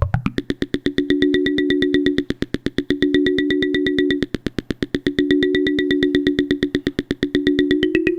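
Make Noise QPAS resonant filter pinged by a fast gate stream: about nine sharp pitched pings a second, each ringing at several fixed pitches. The ringing swells and dies away in cycles, and near the end the pitches glide downward.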